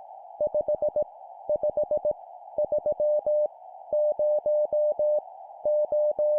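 Morse code (CW) numerals sent at 17 words per minute as a single-pitch sidetone beep, keyed in short dots and longer dashes, with clear gaps between characters. A steady hiss runs behind the beeps.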